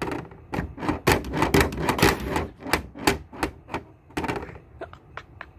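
A cat smacking a plastic cat flap with his paw, the flap clattering against its frame in a fast run of knocks, then lighter, sparser taps from about four and a half seconds in. It is the cat's way of complaining that the flap is blocked.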